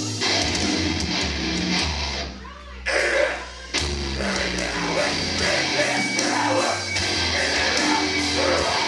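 Live heavy metal band playing, distorted electric guitar over heavy low bass notes. About two and a half seconds in the band drops out briefly, hits back in and stops again for a moment before carrying on.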